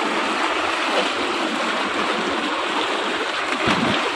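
Tube well outlet pipe pouring a strong, steady torrent of pumped groundwater into a brick-and-cement tank: a continuous rushing. A brief splash comes near the end.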